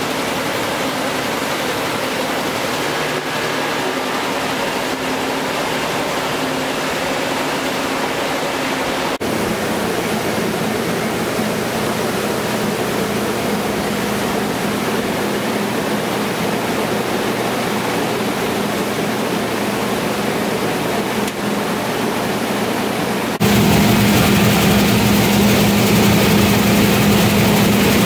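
Compact multipass rice mill running: a steady machine hum over an even noise of the working huller, whitener and blower. The sound shifts abruptly about 9 seconds in and again about 23 seconds in, getting louder with a stronger hum in the last few seconds.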